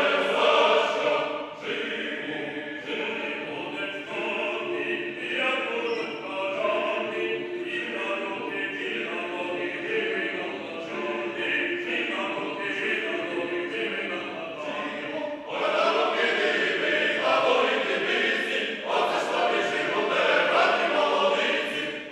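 Mixed choir singing with a male soloist. The choir is softer for most of the stretch, then swells louder about two-thirds of the way through.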